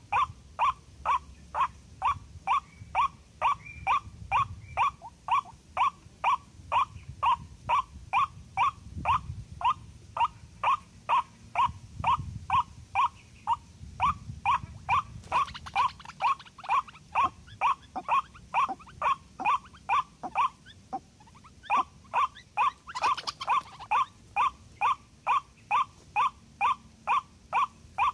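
White-breasted waterhen calling: a steady run of harsh notes, about two a second, with a short pause about three quarters of the way through. Two brief rustling bursts come in the middle and just after the pause.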